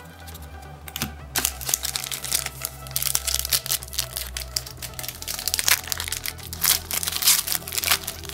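Wrapper of a Panini Threads basketball card pack crinkling and crackling in the hands as it is opened, a dense run of sharp, irregular crackles starting about a second in.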